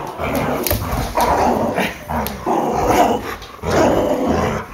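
Rottweiler puppy and Maltese cross play-growling while tugging on a plush toy, in about five rough growls with short breaks between them.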